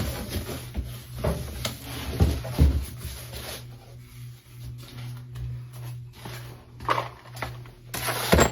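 Box and packing being handled while engine parts are unpacked: irregular rustling and dull knocks, with a few sharper clicks and rattles near the end, over a steady low hum.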